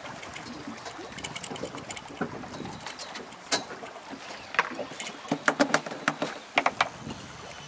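A caught fish thrashing on the fibreglass deck of a small fishing boat: scattered taps, then a quick flurry of sharp slaps and knocks in the second half, over a steady wash of wind and sea.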